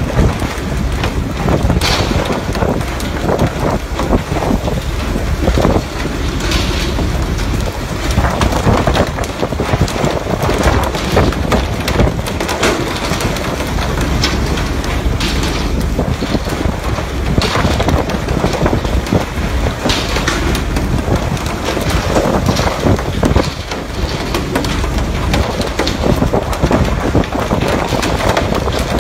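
Steady loud rush of water spray and wind over a fishing boat's deck with a low rumble underneath, broken every few seconds by sharp knocks and slaps as hooked fish are swung in and land on deck.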